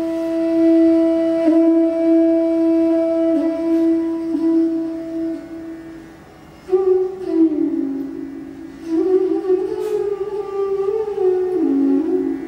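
Bansuri, the Indian bamboo flute, holds a long steady note, then after a brief dip about halfway through plays a slow phrase of gliding, ornamented notes that falls and rises before settling back toward the held note near the end. A faint steady drone sounds beneath.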